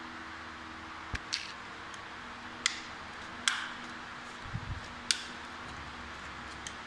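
Sharp plastic clicks and snaps, about five spread over several seconds, as the plastic casing of a power bank is pried apart by hand, with one duller low knock about four and a half seconds in.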